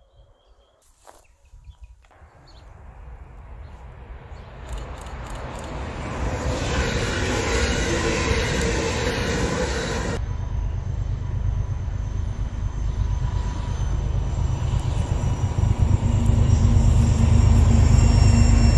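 A train approaching along the track, its running noise rising steadily from faint to loud. A low rumble builds through the second half, and a steady hum and faint high whine come in near the end.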